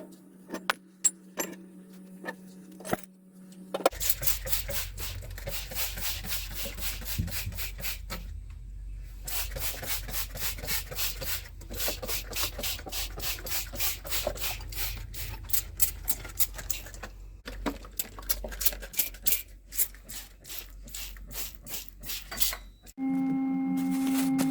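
Cloth scrubbing the fridge's shelves and compartments in fast back-and-forth strokes, after a few separate clicks and knocks of handling. Near the end the scrubbing stops and a steady humming tone begins.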